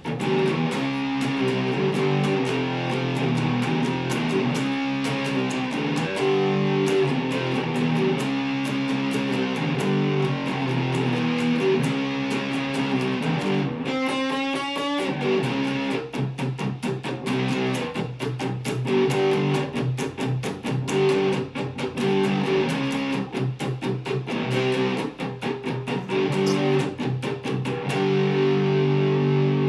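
Electric guitar, a Mexican-made Fender Stratocaster on its Lace Sensor neck pickup with the tone knob turned all the way down, played through an amp: strummed chords and picked notes, with a sliding rise in pitch about halfway and faster strumming after it.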